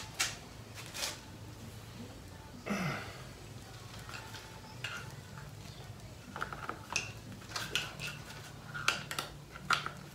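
Scattered light metallic clinks and knocks of tools and parts being handled during work on a motorcycle, coming thicker in the last few seconds, over a faint steady hum.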